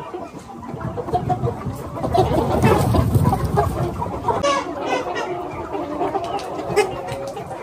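A flock of chickens clucking and calling over one another, with a louder muffled noise about two to four seconds in.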